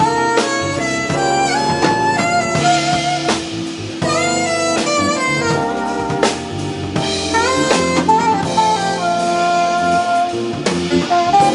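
Live jazz band playing: a saxophone carries a moving melodic line, with some sliding notes, over a drum kit, electric bass and keyboards.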